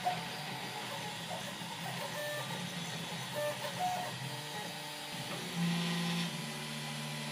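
3D printer printing: its stepper motors whine in short tones that jump between pitches as the print head changes moves, over a steady hiss and hum. A stronger, lower motor tone sets in about three-quarters of the way through.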